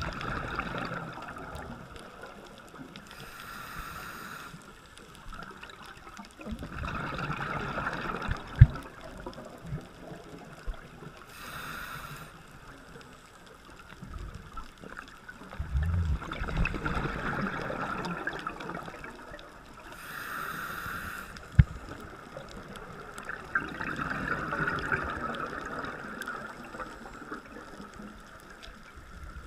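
Scuba diver breathing through a regulator underwater, heard from the camera: a short hiss on each inhale, then a longer gurgling rush of exhaled bubbles, repeating about every eight seconds. Two sharp clicks stand out, about a third of the way through and again about two thirds through.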